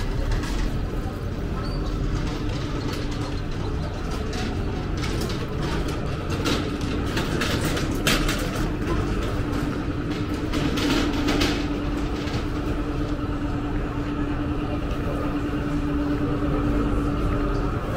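Town street ambience: a constant low rumble, with a steady low hum starting about six seconds in and lasting until near the end, and a few short knocks and clicks.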